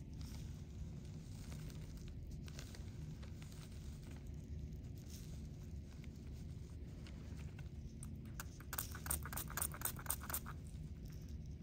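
Steady low room hum, with a quick run of light clicks or taps lasting about two seconds, some three-quarters of the way in.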